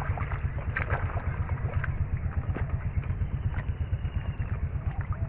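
A small engine putt-putting steadily with a low, rapid pulse, with scattered wet squelches and splashes of hands and feet working in shallow muddy water.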